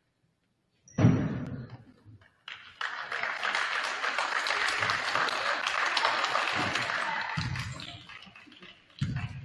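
A single loud thump about a second in, then a crowd in a gym applauding for several seconds before the clapping fades out near the end.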